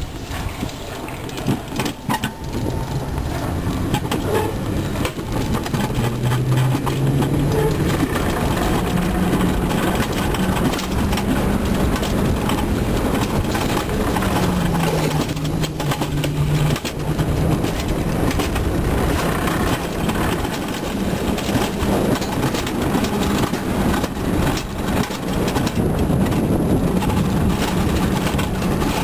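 Alpine coaster sled's wheels running fast along a tubular steel track: a loud, steady rumble with a low hum that rises and falls in pitch as the sled speeds up and slows through the curves.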